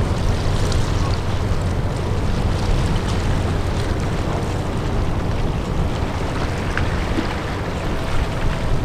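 Steady low rumble of a large ship under way, mixed with wind buffeting the microphone.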